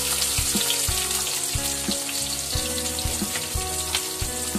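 Sliced onions sizzling steadily as they fry in hot oil in a kadai, with background music and a steady beat underneath.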